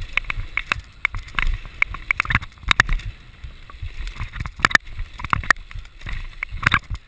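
Mountain bike riding fast down a rough dirt trail: irregular clattering knocks and rattles as the bike jolts over bumps, over a low rumble of tyres and wind on the microphone.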